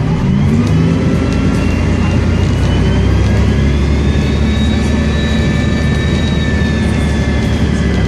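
Volvo Olympian bus engine pulling hard with a loud turbocharger whistle that rises in pitch over the first few seconds, then holds a steady high whine over the engine's deep running.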